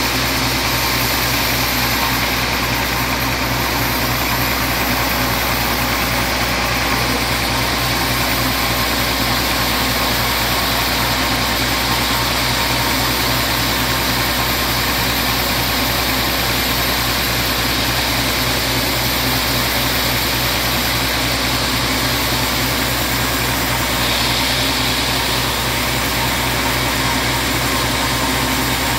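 Large vertical band sawmill running steadily, its blade ripping lengthwise through a teak log fed on the carriage.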